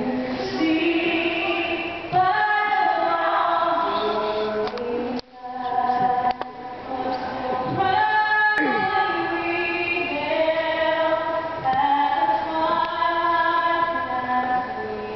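A woman singing the national anthem solo, holding each note, with a brief break for breath about five seconds in.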